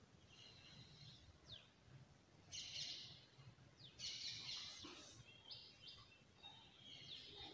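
Near silence with faint bird chirps: scattered short high calls and quick falling whistles, over a low room hum.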